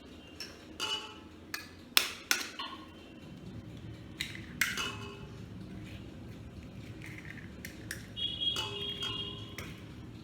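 A utensil tapping and clinking against a mixing bowl, each sharp tap followed by a short ring. There are about eight taps in the first five seconds, the loudest about two seconds in, and a few more near the end.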